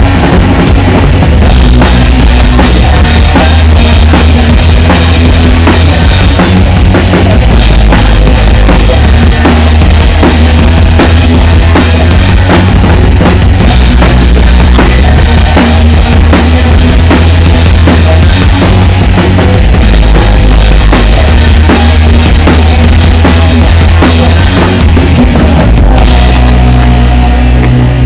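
Live rock band playing loudly, heard close to the drum kit: drums and cymbals over bass notes. Near the end the cymbals stop and a held bass note remains.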